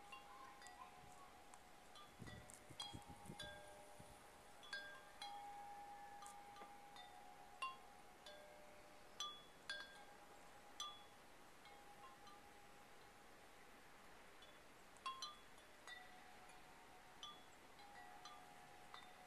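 Wind chime struck irregularly, a dozen or so scattered strikes with their tones ringing on between them.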